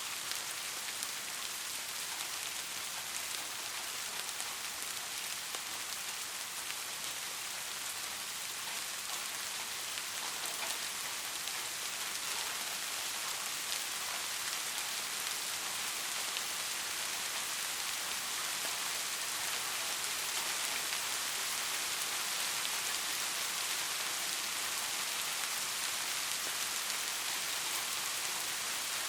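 Steady rain falling, an even hiss of many drops with faint individual drop ticks.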